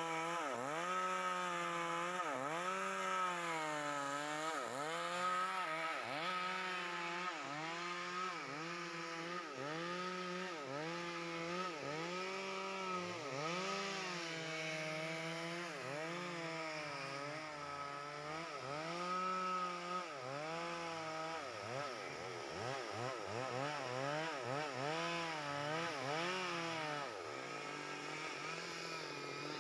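STIHL petrol chainsaw's two-stroke engine cutting lengthwise along a big log. Its pitch dips and climbs back about once a second as the chain loads up in the cut and frees again. In the later part the dips come faster, two or three a second.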